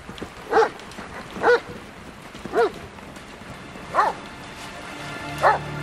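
A dog barking: five single barks, roughly one a second.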